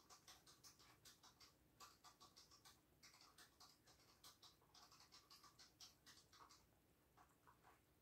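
A beagle foraging in a fleece snuffle mat, chewing dry kibble and rustling the fleece: faint, rapid, irregular crunching clicks that thin out about six and a half seconds in, with a few more near the end.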